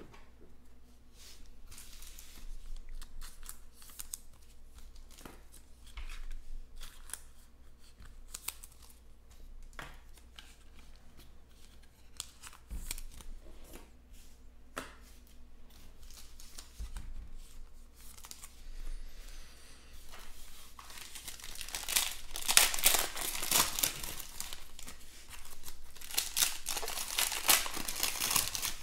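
Scattered light taps and clicks, then, about two-thirds of the way in, a foil trading-card pack being torn open, its wrapper crinkling and crackling loudly.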